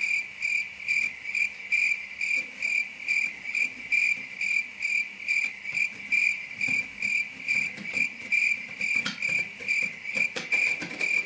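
Cricket chirping steadily, one high chirp repeated evenly a little over twice a second. A few faint clicks from a utility knife slitting packing tape come near the end.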